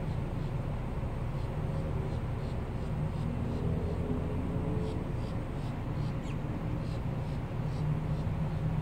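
Steady low rumble of a distant vehicle engine, with faint high chirps of birds over it.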